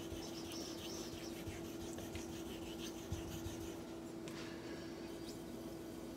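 Fingertips rubbing over the wet face of a Shapton 5K whetstone, a faint scratchy rubbing, followed by a couple of light ticks as the blade is picked up and set to the stone. A steady low hum runs underneath.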